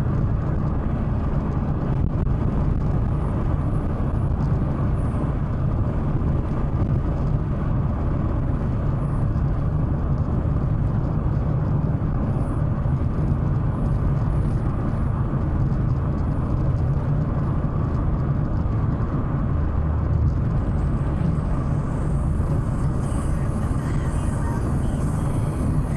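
Steady low road and engine drone inside the cabin of a Chevrolet Astra cruising on a highway at about 85 to 90 km/h.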